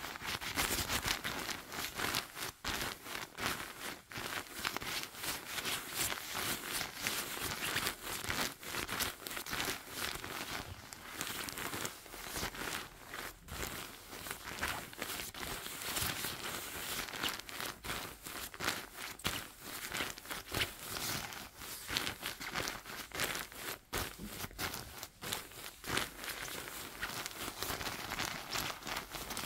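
Glossy quilted puffer jacket shell being scrunched and rubbed by hand: continuous, irregular crinkling and rustling of the shiny fabric.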